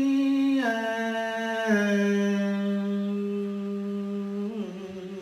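A man's voice holding one long chanted note at the end of a sung Buddhist verse. The note steps down in pitch twice in the first two seconds, holds steady, then wavers and fades near the end.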